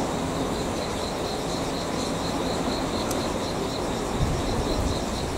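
An insect chirping in a fast, regular pulse, over a steady low rumble of rail-yard noise, with one low thump about four seconds in.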